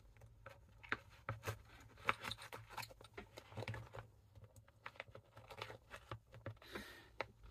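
Faint, scattered clicks and light rustling of small hand tools and bits being handled and sorted.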